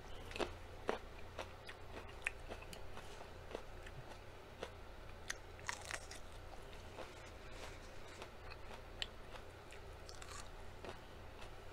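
Faint biting and chewing of a small raw red pepper: scattered short crisp crunches and mouth clicks, with a louder crunch about six seconds in.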